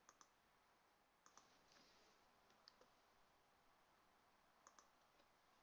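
Near silence broken by a few faint computer mouse clicks and key presses, several coming in quick pairs, as numbers are entered into a software dialog.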